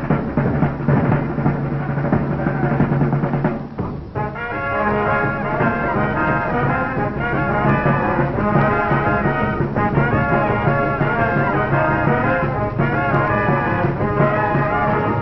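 Brass band music with drums. There is a brief break about four seconds in, then a new phrase with short, repeated notes.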